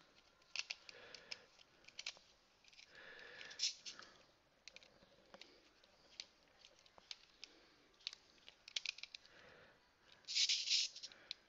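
Small screwdriver working a screw on a toy robot's plastic battery cover: irregular clicks and short scratches of metal on plastic, with a louder scraping noise near the end.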